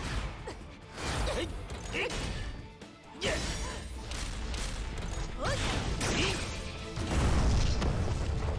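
Cartoon battle sound effects over action music: whooshes and hard impacts as two armoured robot fighters trade blows. A loud, deep explosion comes near the end.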